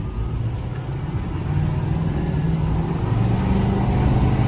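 Chevrolet Silverado 2500 HD's Duramax turbo-diesel V8 pulling hard under full acceleration, heard from inside the cab, its drone growing louder and slowly rising in pitch as the truck gathers speed.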